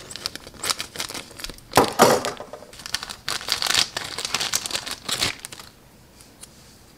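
A thin clear plastic parts bag crinkling and crackling in the hand as a small clear kit part is taken out of it. The crinkling is irregular, with a few sharper crackles, and it stops about a second before the end.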